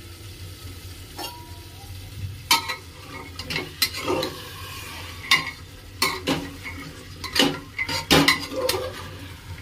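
Spatula stirring potatoes, dried peas and masala in an aluminium pressure cooker: irregular scrapes and knocks against the pot, many after about two seconds, with the food sizzling.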